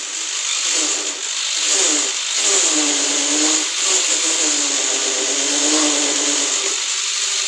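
Electric drill motor running continuously at high speed. It has a hard high-pitched whine, and its pitch wavers up and down.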